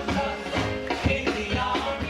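Live church praise band playing an upbeat song with drum kit, bass and keyboard, with singing over it.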